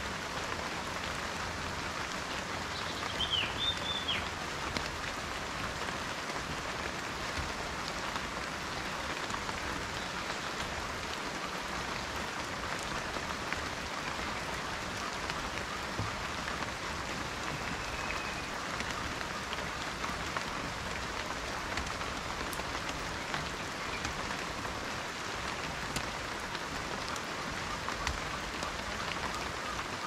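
Steady rain falling on dense rainforest foliage, an even unbroken hiss. A brief high chirp sounds about three seconds in.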